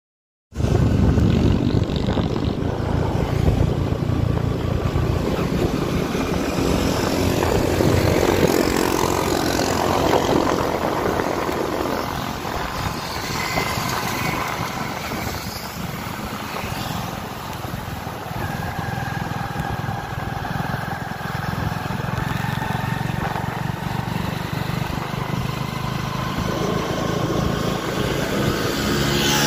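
Motorcycle engine running and road and wind noise while riding, starting abruptly about half a second in and going on steadily.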